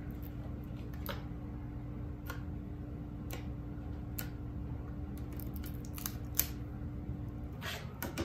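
Light, scattered clicks and taps of fingers pressing and folding double-sided tape along the inside edge of a wooden picture frame, with one sharper tap about two-thirds through and a short rub near the end. A steady low hum runs underneath and stops shortly before the end.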